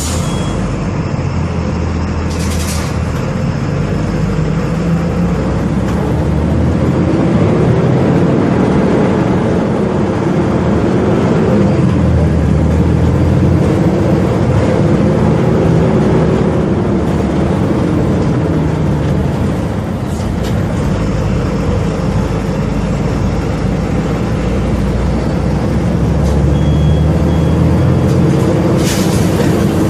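Volvo B270F bus engine running while the bus drives, its pitch rising and falling several times as it pulls up through the revs and eases off. A short air hiss from the pneumatic brakes about two seconds in and again near the end.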